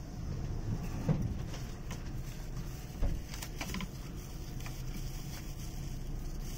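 Steady low hum inside a JNR 185 series express train standing at the platform, with two short knocks, one about a second in and a sharper thud about three seconds in.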